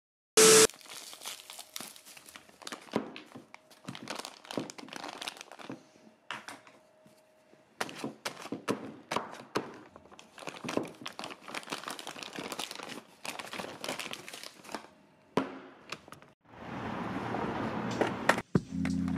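Clear plastic bag crinkling and tearing as a new skateboard truck is unwrapped, in a long run of sharp crackles, after a brief loud glitchy burst about half a second in. Near the end a rising hiss swells up and music begins.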